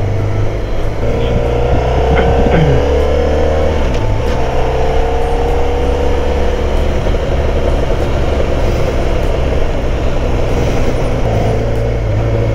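Motorcycle engine running on the road, pulling up through the gears with a rising whine twice in the first seven seconds or so, over a steady rush of wind.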